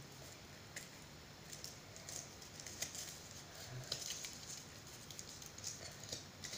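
Faint, scattered small clicks and crinkles from a chocolate Easter egg being handled close to the microphone.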